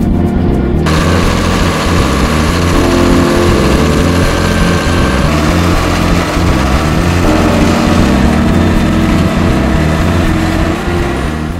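Large farm tractor's engine running steadily as it pulls a vertical TMR feed mixer wagon. The sound fills out about a second in and begins to fade near the end.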